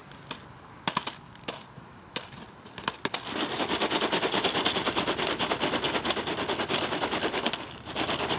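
Jiffy Pop popcorn popping in its foil pan over a campfire: a few separate pops, then from about three seconds in a rapid, dense run of popping and rattling as the pan is shaken, easing briefly near the end before picking up again.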